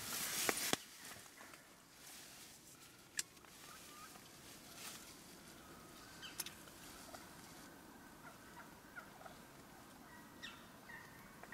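Faint, short wild turkey calls, many soft notes scattered through, after a brief rustle of movement at the start.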